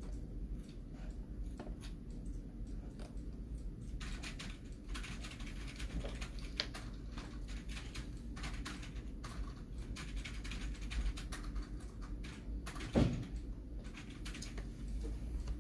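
Computer keyboard typing: irregular runs of clicks, busier from about four seconds in, over a steady low hum. Near the end a brief pitched sound stands out as the loudest moment.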